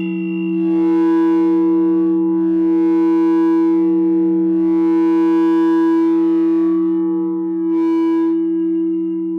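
No-input mixer feedback drone played through an effects pedal: a steady, distorted low hum with a stack of held overtones. A hissy upper layer swells and fades every couple of seconds, with a short flare about eight seconds in, and the level eases off near the end.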